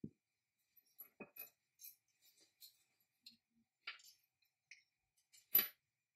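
Light clicks and clinks of a small rusty metal band saw bracket being handled and turned over in the hands on a wooden workbench, with a soft knock at the start and a sharper click about five and a half seconds in.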